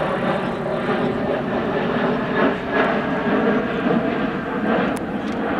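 Sukhoi Superjet 100 airliner flying overhead, its two PowerJet SaM146 turbofan engines making a steady jet rumble with faint steady tones through it.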